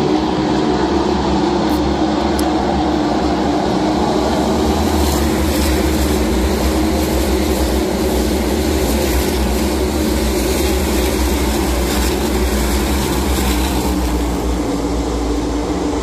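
NASCAR Cup Series stock cars at race speed, their pushrod V8 engines making a loud, steady drone as the field runs around the track.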